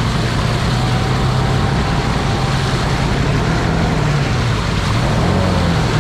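Can-Am ATV engine running hard at high revs, its pitch wavering up and down, with the tyres spinning and churning mud: the quad is stuck in a mud hole and being worked to climb out, without getting free.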